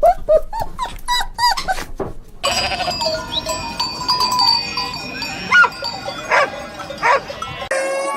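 Several different animal calls edited back to back. First a quick run of short repeated calls, then, after an abrupt change, a steadier background with three sharp loud calls, and another abrupt change near the end to a long drawn-out call.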